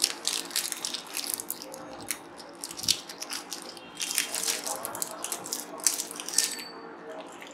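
Clear plastic bag crinkling and rustling in irregular crackles as plastic toy fishing rods are handled and worked out of it.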